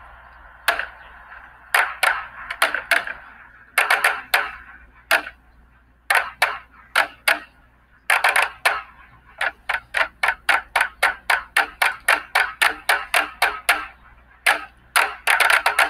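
A group of drummers striking upside-down plastic buckets with drumsticks, making sharp, dry hits. The hits are sparse and spaced at first, then come in a fast even run of about four a second, ending in a quick flurry.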